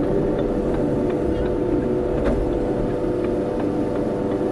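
Kobelco excavator's diesel engine running steadily, a continuous drone with a steady hum.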